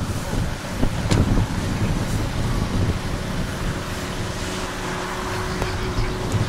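A vehicle engine running, with wind buffeting the microphone; a faint steady hum comes in about three seconds in.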